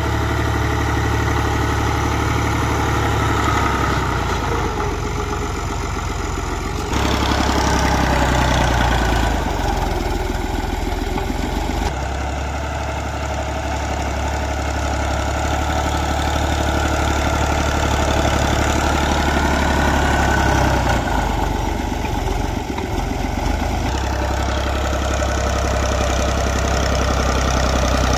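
Fiat 480 tractor's three-cylinder diesel engine running steadily while its front blade pushes soil. The sound jumps abruptly in level and tone a few times.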